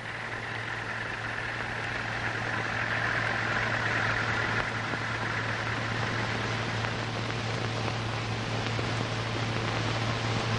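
Steady engine noise of a crawler tractor pulling a disc harrow across a field. It swells over the first few seconds and then holds even.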